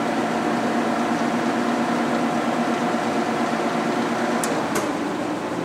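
Tominaga radial arm drill press's geared spindle head running steadily at 500 RPM, a hum with several steady tones. Near the end two sharp clicks come as the control lever is worked, and the running tone fades as the spindle winds down.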